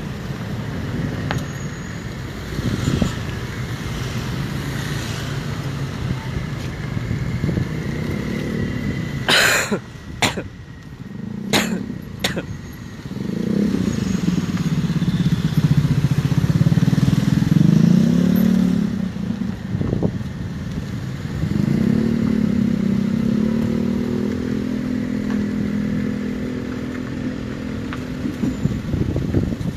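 Motorcycle and car engines in slow street traffic. A few sharp clicks come about ten seconds in. After that, engines rise in pitch as they pull away, and one runs at a fairly steady pitch near the end.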